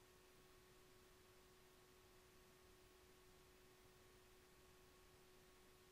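Near silence: a faint hiss of the recording's noise floor, with a steady faint hum.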